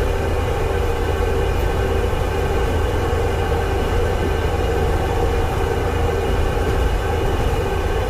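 Steady engine and road drone inside a motorhome's cab at highway speed, with a constant multi-tone hum in it.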